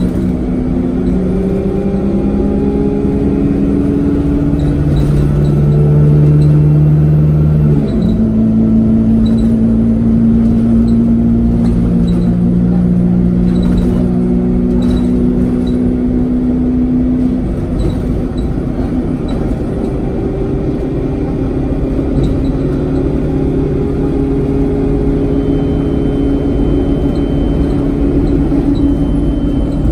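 Inside an Alexander Dennis Enviro 200 single-decker bus under way, its engine pulling hard over steady road rumble. The engine note climbs, then shifts abruptly about eight seconds in and again around seventeen seconds, as the gearbox changes gear.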